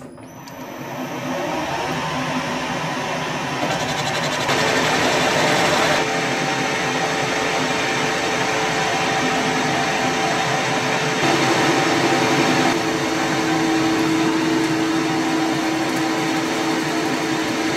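A metalworking machine tool starting up and running steadily, building to full speed over about two seconds. Its mix of tones shifts several times as it works on a piece of steel stud stock.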